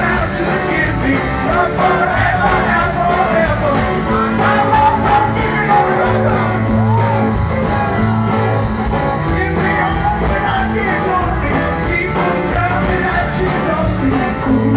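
Live rock band playing through a stadium sound system, heard from far back in the crowd: a sung lead vocal over guitar, bass and drums keeping a steady beat.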